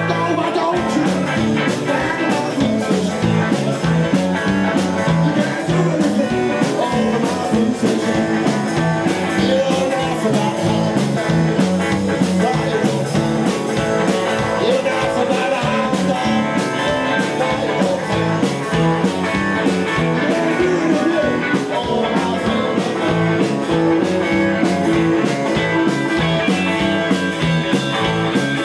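Live rock band playing: electric guitars, electric bass and drums with a steady beat, and a man singing.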